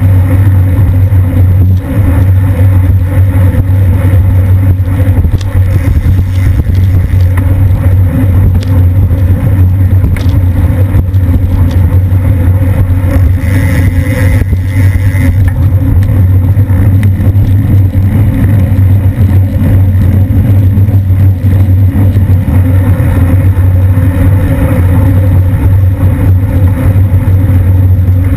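Wind buffeting a bicycle-mounted camera's microphone at racing speed, about 23 mph: a loud, steady, low rumble that does not let up.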